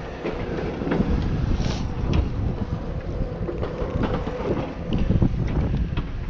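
Strong gusting wind buffeting the microphone with a heavy, uneven rumble, with a few light clicks and knocks scattered through it.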